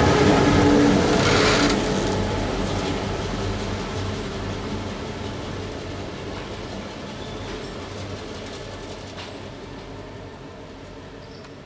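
EMD GP38-2 diesel locomotive and its 16-cylinder two-stroke engine running as the train passes close by, loud for about the first two seconds. It then fades steadily as the train rolls away into the distance.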